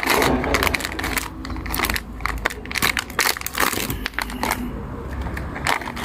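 Plastic hotpot-seasoning packet being handled and opened, an irregular run of crinkling and crackling over a steady low rumble.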